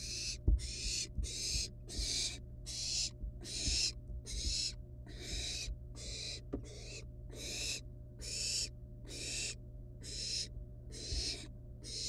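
Barn owl nestlings giving their rasping, hissing 'snoring' calls one after another, about two a second. Beneath the calls are soft low thumps and a steady low hum.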